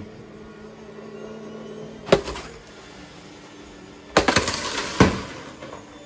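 Robot vacuums running over a rice-strewn floor with a steady low hum, broken by sharp cracking clicks: one about two seconds in, a quick cluster about four seconds in, and another a second later.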